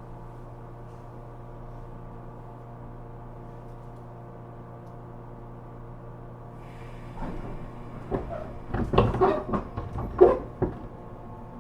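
JR Kyushu 415 series electric multiple unit standing with its doors shut: a steady electrical hum made of several held tones. From about seven seconds in comes a run of irregular clunks and knocks through the car body as the train starts off, the loudest near the end.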